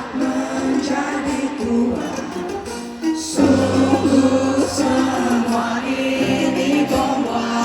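Live band music at a concert, with singing and no clear words, recorded from the crowd on a phone. The band gets fuller and louder about three and a half seconds in, when the bass comes in strongly.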